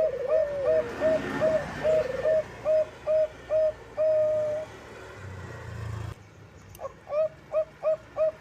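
Zebra dove of the Bangkok strain (perkutut bangkok) cooing in a quick series of short repeated notes, about two a second, with one longer held note partway through. The sound drops out briefly after about six seconds, then the notes start again. It is a lure call played to get other doves to sing.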